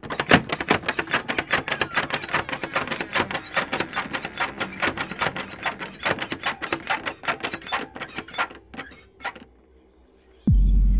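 A fast, irregular run of sharp clicks and taps, several a second, that thins out and stops about nine and a half seconds in. Near the end a sudden, loud, low boom sets in and holds.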